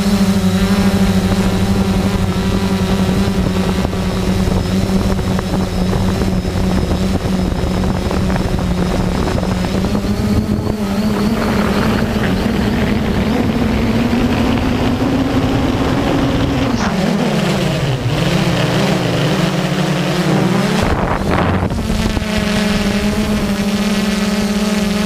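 Multirotor drone's motors and propellers humming steadily, heard on the drone's own camera. The pitch creeps up from about ten seconds in, drops sharply a few seconds later, wavers low, then climbs back near the end as the motors change speed.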